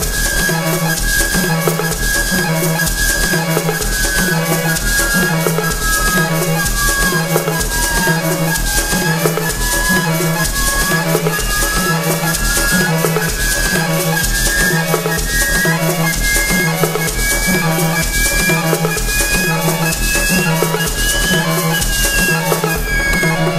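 Background music with a steady drum beat, a long held high note and a lead line that slowly slides down and then up.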